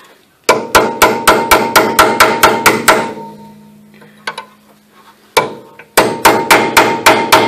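Hammer blows on a steel chisel driven against a drilled-out broken bolt. The blows come in two quick runs of about four or five a second, with a ringing metallic tone, and a few single blows between them. The bolt is seized and stuck too well to lift out with the chisel.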